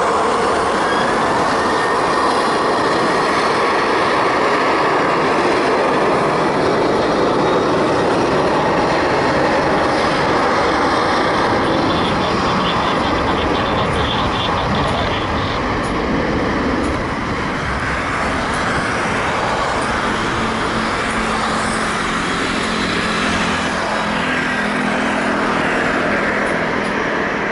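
Boeing 737-800 jet engines (CFM56-7B) at takeoff thrust: a loud, steady rushing noise that eases a little after about seventeen seconds, with a low steady hum coming in near the end.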